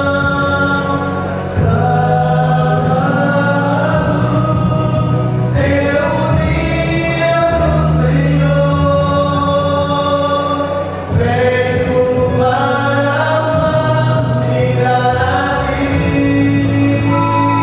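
Male vocal quartet singing a gospel song in harmony through microphones, with sustained notes and a strong low bass part.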